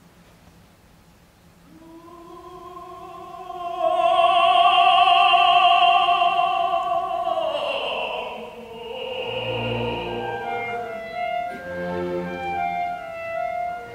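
Operatic tenor singing with a chamber orchestra. After a soft start he swells into a long, loud held high note with strong vibrato, then slides down near the middle, and the orchestra comes in with chords through the second half.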